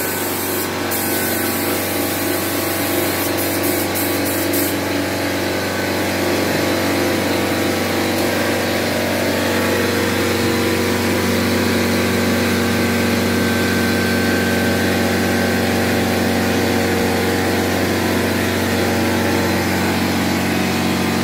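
A fan or electric motor running steadily: an even rush of air over a constant hum, level throughout.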